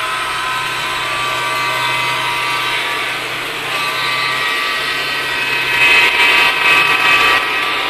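HO scale model train running at speed over the track: a steady whir of the locomotive motors and wheels on the rails, louder for a stretch about six to seven seconds in.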